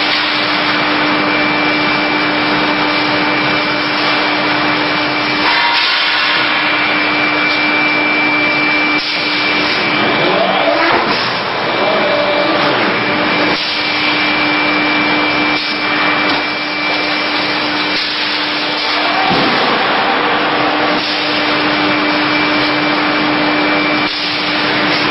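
Steady, loud machinery noise of a CNC hydraulic die-forging hammer line with a loading robot: a continuous hiss with a hum that comes and goes for several seconds at a time, broken now and then by sharp knocks and short rising whines.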